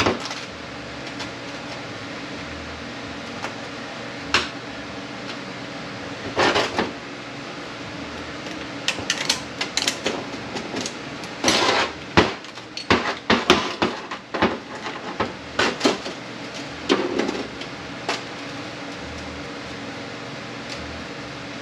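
Irregular metal clinks and knocks of Honda BOYA automatic transmission parts and hand tools being handled during teardown. Scattered at first, then a busy run of clatter in the middle before it thins out again.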